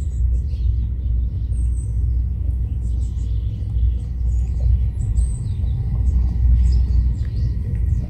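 Low, fluctuating rumble, typical of wind buffeting the microphone, with faint high chirps scattered above it.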